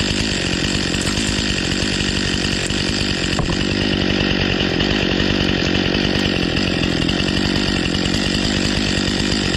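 Stihl MS 261 C two-stroke chainsaw running steadily at speed.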